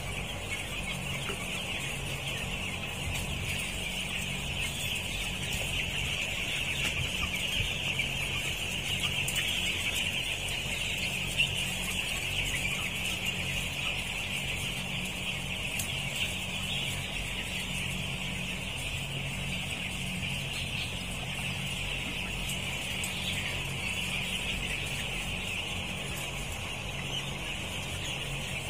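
A large flock of 12-day-old broiler chicks peeping without pause in a dense, steady chorus, over the low, even hum of the poultry house's exhaust fans.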